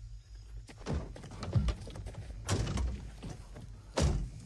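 Several dull thunks and knocks, the loudest one near the end, over a low steady hum.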